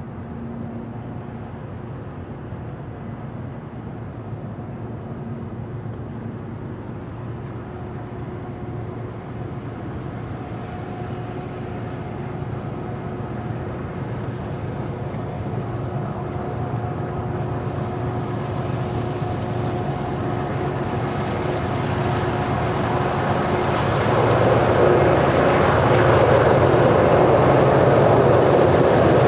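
The diesel engines of a BNSF freight train's lead GE ET44C4 locomotives, four-stroke V12 GEVO units, drone steadily as the train approaches. The sound grows louder as they near, most of all in the last few seconds.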